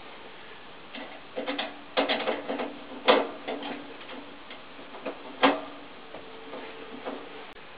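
Irregular sharp metallic clicks and knocks from a tool and hands working on a wall-mounted gas boiler's pipe fittings, some followed by a brief metallic ring. The loudest knocks come about three and five and a half seconds in.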